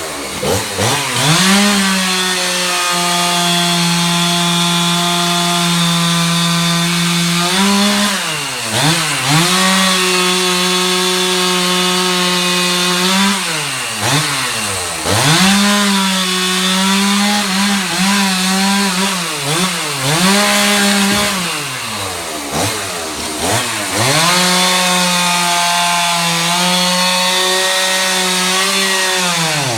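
Two-stroke chainsaw cutting up a fallen tree limb. It runs at full throttle for long stretches and several times drops back toward idle before revving up again.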